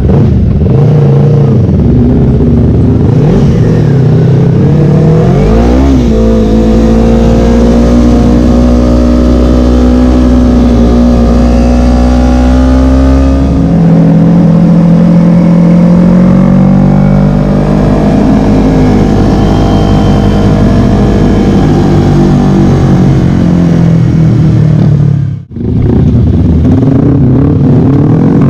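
Small sport motorcycle engine heard from a bike-mounted camera, revving up and down, then running hard at fairly steady revs with a drop in pitch about halfway through as it shifts. The sound cuts out for a moment near the end.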